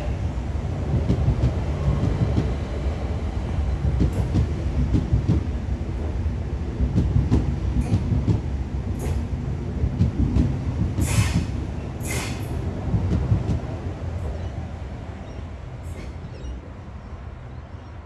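Double-deck electric suburban train running past along the platform: a steady low rumble of wheels on rail that fades away over the last few seconds as it leaves. About two-thirds of the way through come two short, sharp noises about a second apart.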